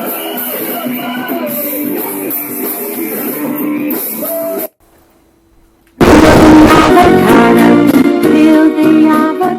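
Rock band demo recording with guitar, drums and singing. The music stops about four and a half seconds in; after about a second of near silence, a much louder passage starts.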